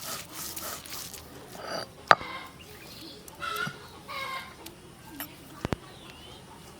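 Chickens clucking in short calls, with two sharp knocks, one about two seconds in and one near the end.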